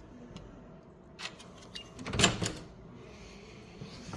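Hotel room door with a key-card lock being unlocked and opened: a light click about a second in, then a louder clatter of lever handle and latch about two seconds in.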